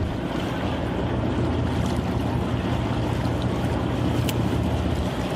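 A fishing boat's engine running steadily, a low hum under wind and waves.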